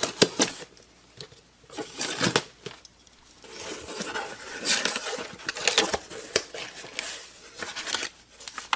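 A cardboard shipping box being handled: irregular scraping and rustling in short bursts, with a few sharp clicks at the start.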